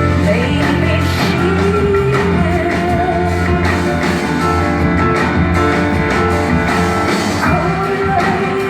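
A band plays the song live, with a woman singing over a steady, sustained bass.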